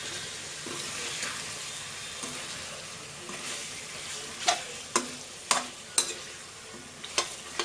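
Chicken and onions sizzling in a frying pan as a spoon stirs in the spices. In the second half there are five or six sharp metallic clicks against the pan.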